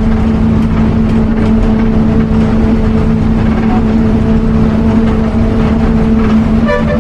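Inside a moving bus: steady engine drone and road rumble. A vehicle horn starts honking near the end.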